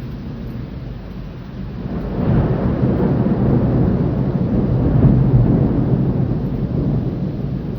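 A long roll of thunder builds about two seconds in, is loudest a few seconds later, then slowly dies away.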